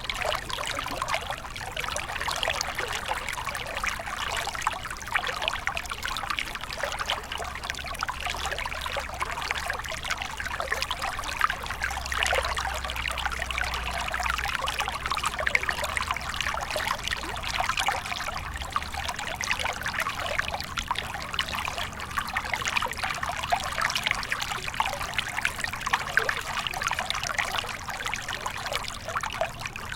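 Water stream flowing steadily, a continuous trickling and splashing rush.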